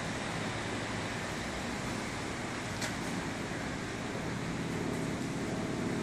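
Steady machine noise with a low, slightly wavering hum, and a faint click about halfway through.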